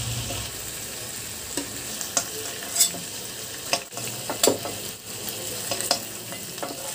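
Chicken pieces sizzling steadily in hot oil in a kadai, with the spatula clicking and scraping against the pan several times as the fried pieces are lifted out.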